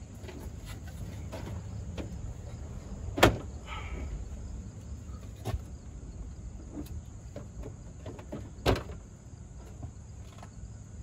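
Plastic front grille of a Ram 1500 being pulled loose and lifted off, its plastic clips and frame knocking and clacking, with a sharp snap about three seconds in and another near nine seconds. A low steady rumble runs underneath.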